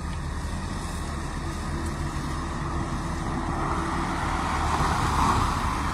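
Engine of a small excavator running steadily, with a rushing noise swelling over the last two seconds.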